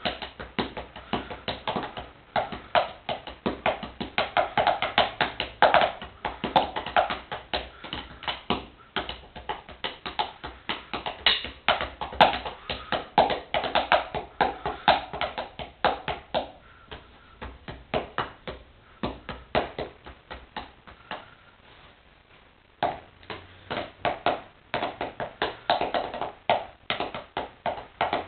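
Wooden drumsticks drumming fast beats on a pair of sneakers: dense runs of sharp taps. The strokes turn quieter and sparser for a few seconds about two-thirds through, then full playing resumes.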